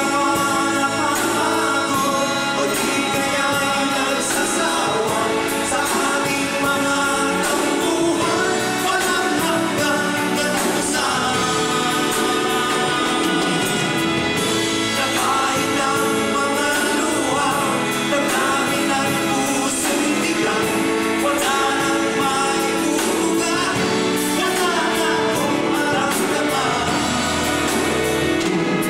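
Male vocal trio singing a pop song with a live band of drums and keyboards.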